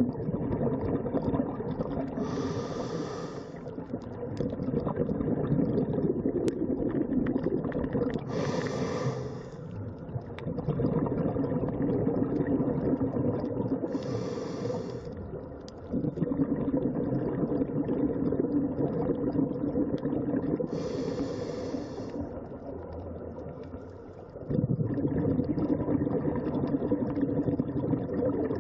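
Scuba diver breathing through a regulator: a hiss of inhalation about every six seconds, four times, with a low bubbling rumble of exhaled bubbles between them.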